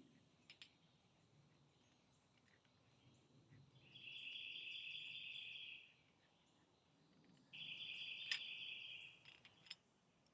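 Two high, buzzing trills of about two seconds each, several seconds apart, starting and stopping abruptly, from a calling animal. A few faint clicks, with one sharp click during the second trill.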